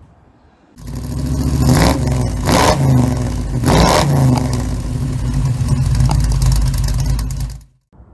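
A car engine running and revving, with several louder blips of the throttle, that starts suddenly and cuts off abruptly near the end.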